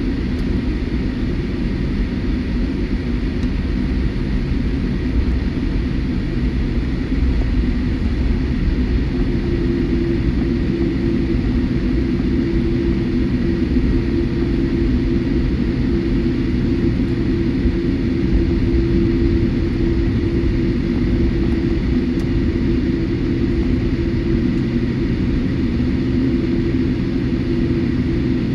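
Steady cabin noise aboard a Boeing 787-8 airliner: a continuous rumble of engines and airflow with a steady hum over it. A lower-middle hum grows stronger about ten seconds in.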